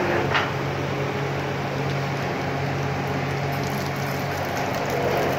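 Electrical discharge machine running: a steady low hum under a constant hiss, with a brief sharper sound near the start.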